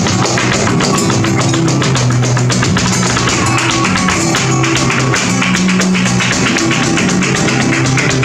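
Flamenco footwork (zapateado): the heels and toes of the dancer's shoes strike a wooden stage in rapid, sharp strokes, over flamenco guitar music.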